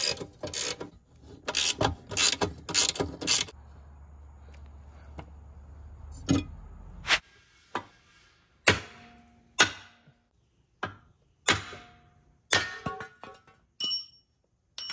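Hand tools and metal jet pump parts of a Yamaha WaveRunner III clicking and clanking as screws are worked out and the pump is taken apart: irregular sharp clicks and knocks, some with a short metallic ring. Near the end a metal part clinks twice with a clear ringing ping.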